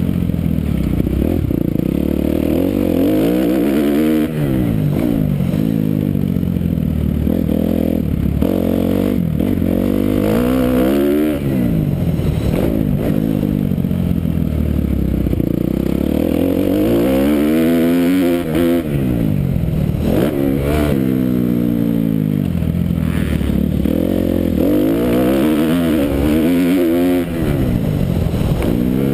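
Kawasaki KX250F dirt bike's single-cylinder four-stroke engine under way on a motocross track, revving up hard and dropping off again every few seconds as the rider accelerates out of turns and shifts.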